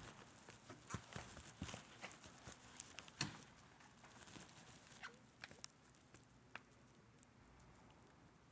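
Near silence with scattered faint clicks and taps, busier in the first few seconds and thinning out later.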